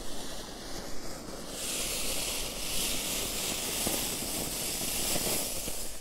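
Two ground fountain fireworks spraying sparks with a steady hiss, which grows much louder about a second and a half in, with a few crackles near the middle.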